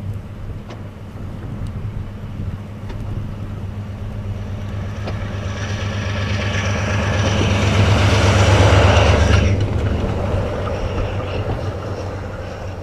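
Diesel locomotive running under power as its front plow drives through deep snow, the low engine hum joined by a rushing of thrown snow that grows louder as it approaches, peaks about eight to nine seconds in, then drops away suddenly.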